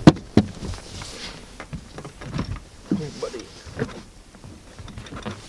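Knocks and clatter from a bass boat's deck hatch and seat being handled, with a sharp knock at the very start and another about half a second in, then lighter clicks and bumps.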